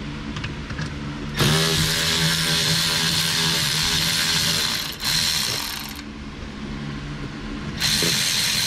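Cordless electric ratchet running, spinning out 8 mm bolts: a steady motor whir that starts about a second and a half in and runs for several seconds, drops back, then starts again near the end.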